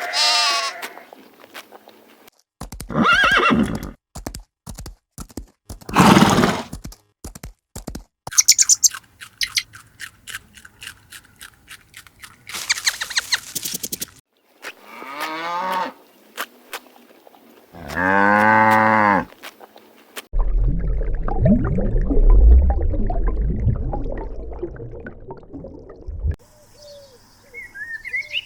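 A string of different animal calls, each a second or two long, one after another. Then comes a loud, low rumbling growl of about six seconds, and faint chirps near the end.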